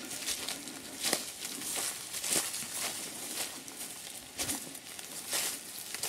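Footsteps crunching through dry fallen leaves on a forest path, an uneven run of steps.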